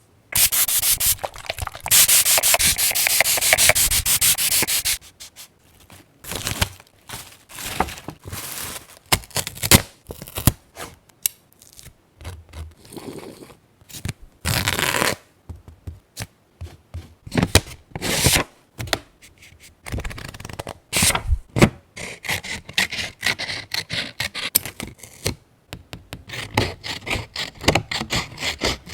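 Paper being rubbed and scraped by hand: a fast, dense scratchy rubbing for about the first five seconds, then shorter intermittent rubs, scrapes and rustles, and quick repeated strokes near the end.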